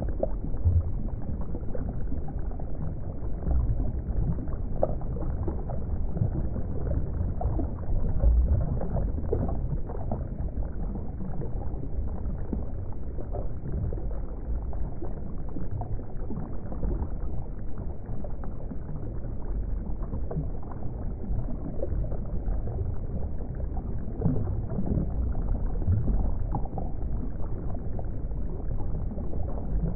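Water bubbling and gurgling, a steady low rumble dotted with many small pops.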